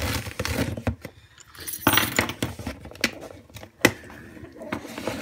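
A cardboard shipping box being opened by hand: packing tape pulled and torn, with cardboard rustling and scraping. There is a louder tearing burst about two seconds in and a sharp click nearly four seconds in.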